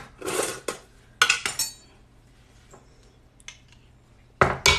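A metal utensil clinking and tapping against a stainless-steel cooking pot while vegetable bouillon is added. A short rustle opens it, one clink about a second and a half in rings briefly, and a cluster of quick knocks comes near the end.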